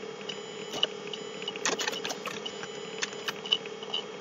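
Computer keyboard keys clicking irregularly during typing, over a steady electrical hum.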